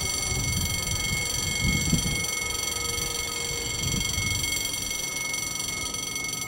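Electronic level-crossing warning bell ringing steadily beside a railway line, then stopping abruptly, as a crossing does once its barriers are down for an approaching train. Wind buffets the microphone in low gusts.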